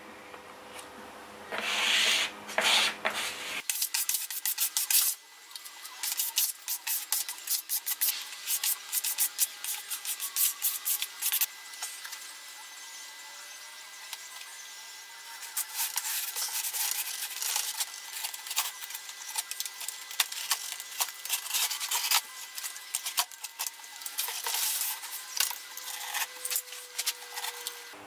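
Repeated short, irregular rubbing and scraping strokes: contact adhesive being wiped onto an MDF board and carpet being smoothed down onto it by hand.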